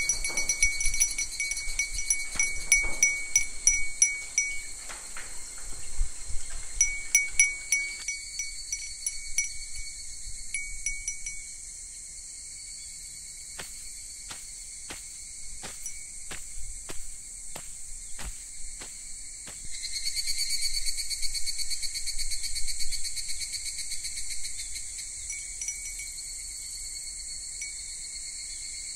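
Chorus of singing insects: a steady, high-pitched chirring made of several layered trills, some pulsing, with a row of soft, evenly spaced clicks about twice a second in the middle. The chirring grows louder about twenty seconds in.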